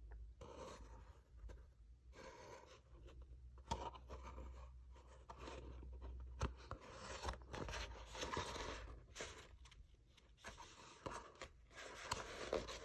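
Handling of a shampoo bar and its paper and cardboard packaging: irregular rustling and scraping, with scattered small clicks and taps.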